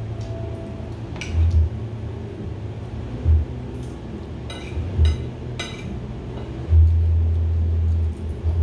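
Tableware clinking several times during a meal, short sharp knocks of dishes, glass or cutlery, over a steady low rumble that gets much louder near the end.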